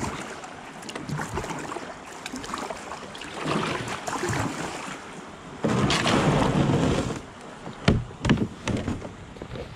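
Kayak paddling with splashes of water, then the plastic hull of a Moken 12.5 sit-on-top kayak scraping up onto a dirt and grass landing bank about six seconds in, followed by a few knocks.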